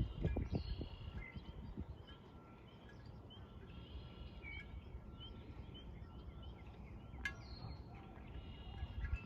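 Faint outdoor birdsong: many short chirps and whistled notes from several birds, over a low rumble. A single sharp click about seven seconds in.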